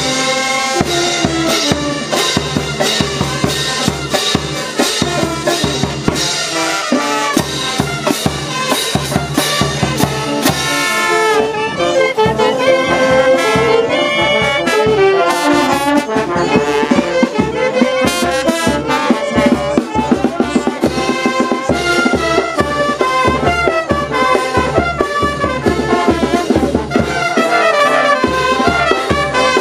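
Brass band playing a tune with a steady beat: trumpets, trombones, saxophones and clarinet over tuba, bass drum, snare drum and crash cymbals.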